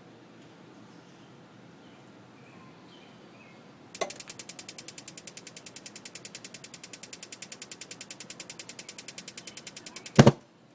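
Gas water heater's spark igniter clicking rapidly and evenly, several times a second, as it tries to light the burner. Just after ten seconds a single loud bang, a small explosion of gas lighting late, a fault the owner fears will someday blow them up.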